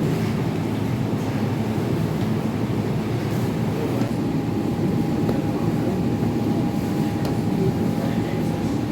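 Steady low rumble of bakery machinery running, with a faint steady tone joining in about four seconds in.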